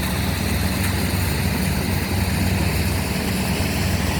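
A rice combine harvester's diesel engine running steadily, a constant low drone with no change in pitch.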